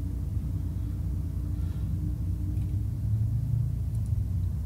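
Steady low background rumble with a faint constant hum.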